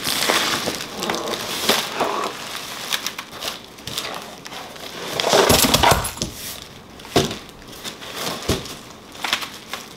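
Cardboard box and plastic packaging rustling and crinkling as LED grow light panels are pulled out, with scattered knocks and a louder, longer rustle a little past halfway.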